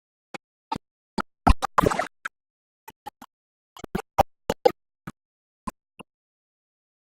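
A scatter of short, sharp clicks and knocks at irregular intervals, with dead silence between them; the loudest come in a quick cluster about one and a half to two seconds in.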